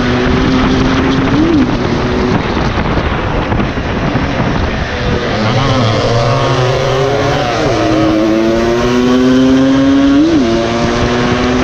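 Small motorcycle engine heard from on board at racing speed, mostly holding a steady note, with a brief sharp rise and fall in revs about a second and a half in and again near the end. In the middle the pitch wavers up and down as a second engine's note overlaps it.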